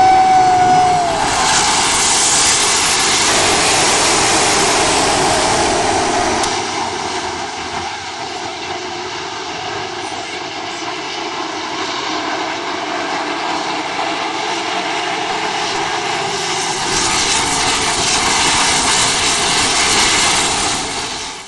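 A field of 410 sprint cars racing on a dirt oval, their 410-cubic-inch V8s running at high revs as one dense engine noise. It swells and fades as the pack goes round: loud at first, lower in the middle, louder again near the end.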